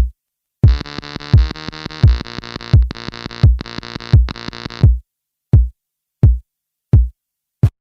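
Modular synthesizer jam: a buzzy synth sequence over an electronic kick drum beating about every 0.7 s, each hit dropping in pitch. About five seconds in the synth line cuts out and the kick carries on alone for four more hits.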